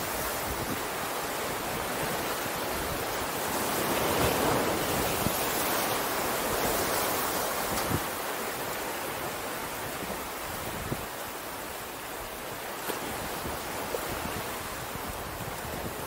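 Ocean surf washing steadily onto the shore, swelling louder about four seconds in and then easing, with wind gusting on the microphone.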